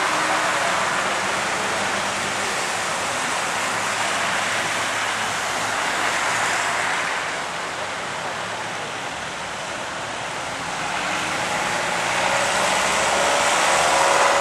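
Car tyres hissing on a wet road, heard from inside a car, as the hiss of passing traffic swells and fades twice.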